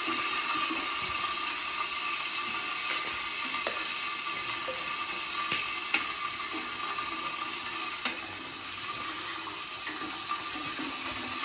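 Water being poured from plastic bottles into an electric hot pot, with a steady rushing and splashing and a few sharp clicks of the plastic bottles being handled.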